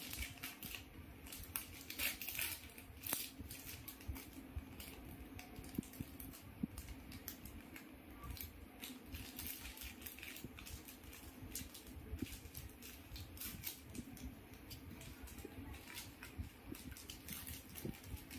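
Faint crinkling and rustling of a Dewgarden sanitary napkin box and its wrapped pads being opened and handled, in irregular crackles throughout.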